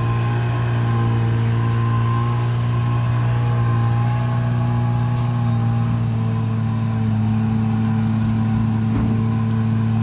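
Heavy diesel logging equipment (a skidder dragging bridge mats, with a dozer following) running steadily at a constant engine speed: a low, even drone with a faint whine above it.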